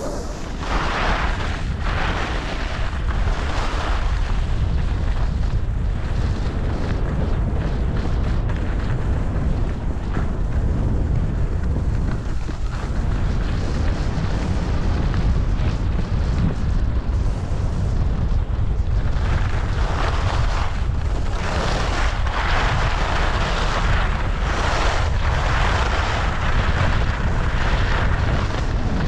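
Wind buffeting a GoPro's microphone while skiing downhill, a steady low rumble, with the hiss of skis scraping over firm, tracked-up snow. The scraping surges in the first few seconds and again through most of the last ten.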